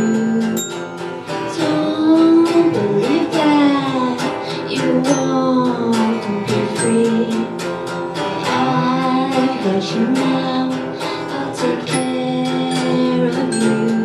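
Live song: a guitar strummed in a steady rhythm with a voice singing the melody over it.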